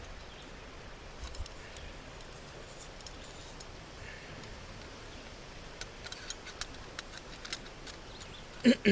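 A steady low outdoor hiss with scattered light clicks and taps, more of them in the second half.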